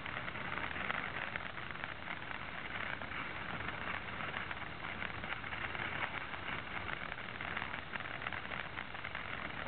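Ground fountain firework spraying sparks: a steady hiss dense with fine crackles.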